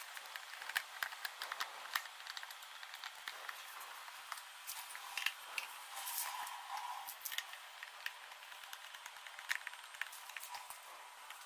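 Faint, irregular clicks and small knocks of a screwdriver working screws out of a kids' electric scooter's plastic body, with light handling of the scooter.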